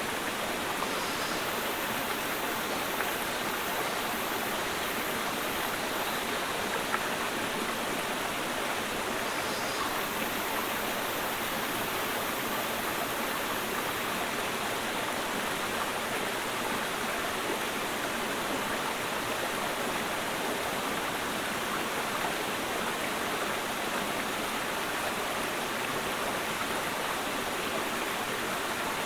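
Mountain stream rushing steadily over rocks, a continuous even babble of water.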